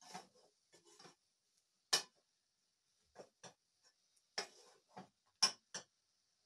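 Metal ladle clinking and scraping against a metal cooking pot while leafy greens are stirred: about a dozen uneven knocks, the loudest about two seconds in and again near the end. A faint steady high hiss runs underneath.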